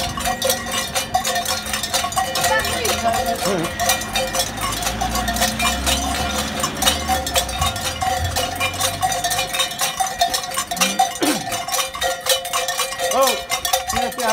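Large metal cowbells (chocalhos) hung at the waist of a walking masked figure, clanking and ringing steadily as they swing with each stride.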